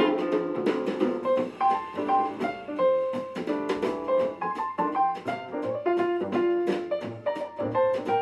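Light instrumental background music with a steady run of short melodic notes.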